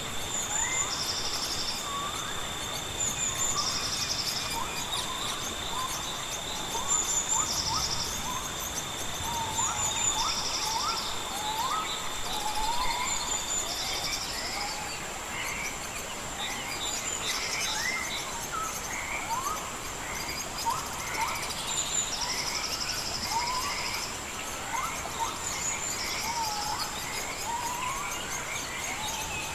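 Nature ambience of many overlapping short bird chirps and calls, with insects trilling in repeated bursts about a second long over a steady high-pitched insect whine. A second steady tone stops about halfway through.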